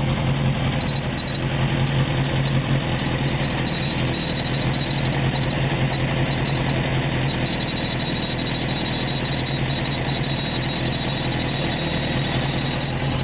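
Honda CBR 929 inline-four idling, with a high thin whistle from the water pump over the engine's low hum. The whistle starts about a second in, flickers on and off at first, then holds steady. It is the sign of a worn water pump, cured by replacing the pump's repair kit.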